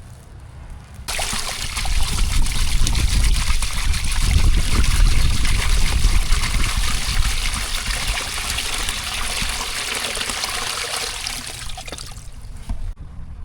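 Water poured in a steady trickling stream, starting about a second in and stopping near the end.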